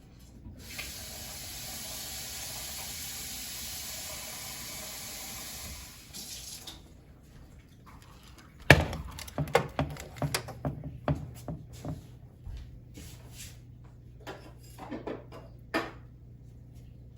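Water running from a tap for about six seconds, stopping abruptly, then a run of sharp clinks and knocks of objects being handled.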